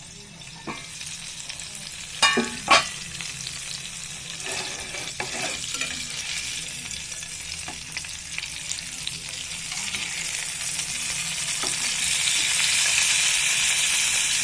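Banana-leaf-wrapped chicken parcel frying in a pan of oil, a steady sizzle that grows louder toward the end. A couple of sharp knocks come about two seconds in.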